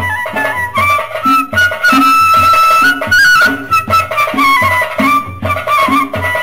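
Background music: a wind-instrument melody moving in steps over a steady drum beat.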